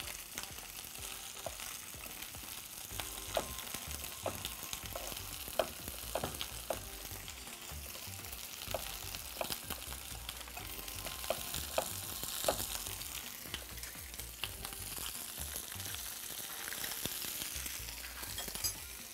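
Chicken drumsticks sizzling as they fry in hot oil in a pan, with irregular knocks of a knife chopping potatoes on a wooden board.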